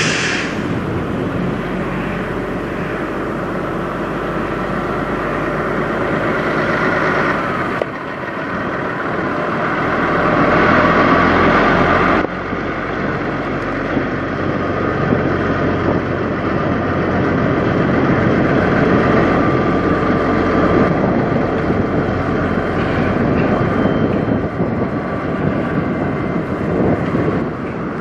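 Kenworth semi truck's diesel engine running steadily as the tractor-trailer drives slowly past, with abrupt jumps in the sound about eight and twelve seconds in.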